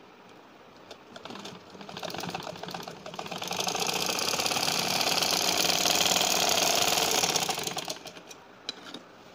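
Singer sewing machine stitching a seam through cotton fabric, a fast steady run of stitches. It starts slowly about a second in, speeds up to full pace, then slows and stops about eight seconds in.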